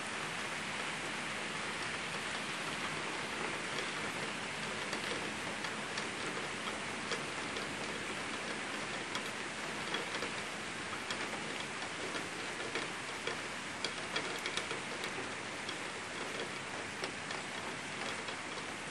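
Heavy downpour: a steady hiss of rain with many sharp raindrop ticks scattered through it, the ticks coming thickest about midway.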